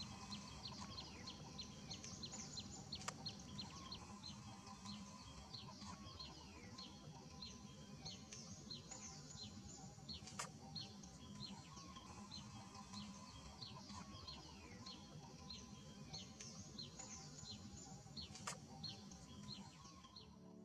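Birds chirping outdoors in a steady run of short, high notes, about three a second, with a few sharp clicks in between.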